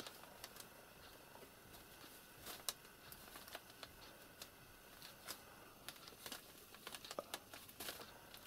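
Faint, scattered crinkling and rustling of newspaper under a kitten and its mother cat as they wrestle on it, a few soft clicks louder than the rest.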